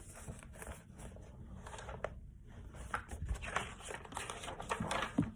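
Faint rustling and scraping of paper as a picture book's page is turned.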